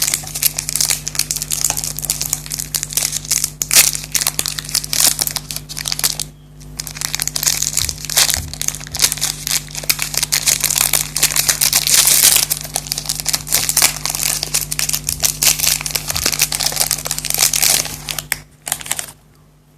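Chocolate wrapper crinkling close to the microphone, a dense run of crackles with a short pause about six seconds in, stopping near the end after one last brief burst.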